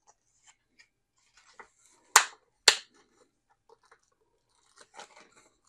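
Plastic packaging of the thermometer's spare thermocouple sensors being handled and opened: faint crinkling and ticking, with two sharp crackles about half a second apart a little over two seconds in.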